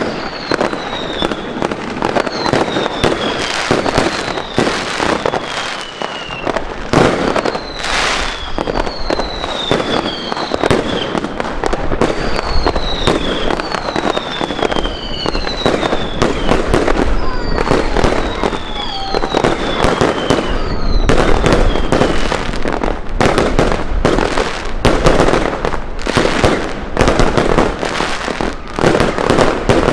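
Fireworks display: a dense, continuous run of bangs and crackling from aerial shells bursting overhead. For roughly the first two-thirds, short falling whistles sound about once a second over the bangs. The bursts then grow denser and louder toward the end.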